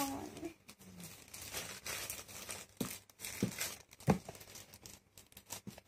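Cardboard phone packaging being handled: soft rustling and scraping with a few light taps as the box and its lid are moved and opened.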